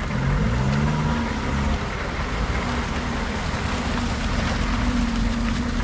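Vehicle engine running under way; its pitch rises in the first second as it revs up, then holds steady, with a broad rushing noise over it.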